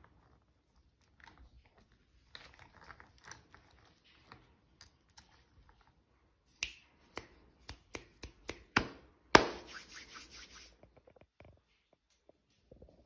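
Small plastic toy pieces and packaging being handled: scattered clicks and taps, then a loud rustle of packaging starting suddenly about nine seconds in and fading within a second or so.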